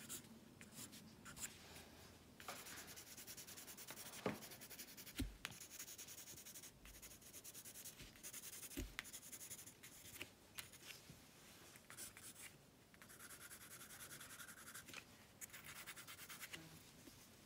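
Pencil scratching across paper in short runs of sketching and shading strokes, with brief pauses between them. A few light knocks stand out, the loudest about four and five seconds in.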